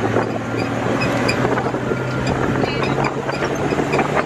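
Open-sided safari truck driving along, with a steady engine drone, the body and seats rattling, and wind buffeting the microphone.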